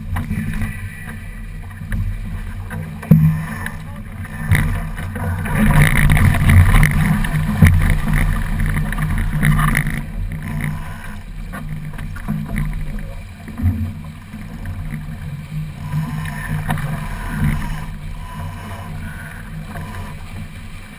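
Wind buffeting the microphone and water rushing along the hull of a sailing keelboat under way, with a sharp knock about three seconds in and another shortly after. The noise swells for a few seconds from about six seconds in as the boat tacks.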